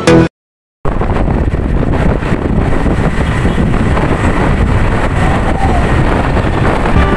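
Wind rushing over the phone's microphone on a moving motorbike, a steady rumbling noise with the ride's road noise underneath. It starts after a short cut to silence less than a second in.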